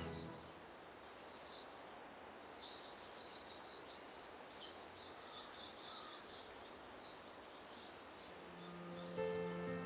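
Forest ambience: a short high chirp repeats about once a second, and a quick run of falling bird chirps comes about five seconds in. Soft background music fades in near the end.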